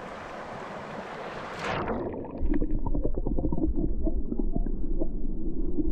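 Rushing river water. About two seconds in, it turns muffled as heard from underwater: a low rumble of the current with many small clicks and ticks.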